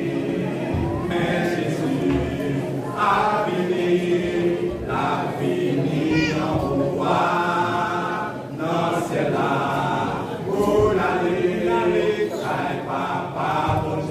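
Men's church vocal group singing a gospel song together, several voices at once.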